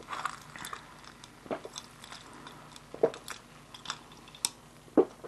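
A person gulping beer from a glass: several separate swallows, the loudest roughly every second and a half.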